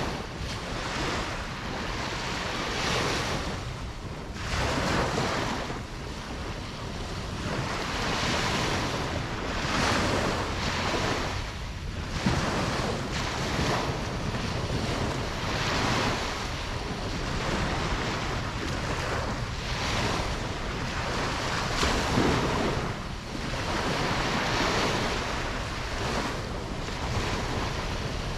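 Ocean waves breaking and washing on a beach, a continuous surf hiss that swells and eases every few seconds, with some wind.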